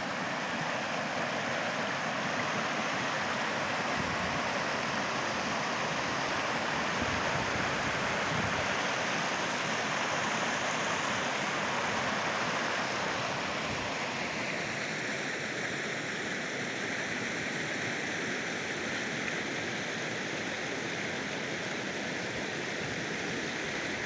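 River water rushing over rocks in shallow rapids, a steady rush of white water. Its tone changes about two-thirds of the way through.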